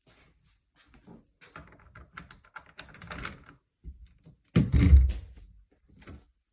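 Irregular small clicks and knocks of objects being handled, then one much louder thump about four and a half seconds in.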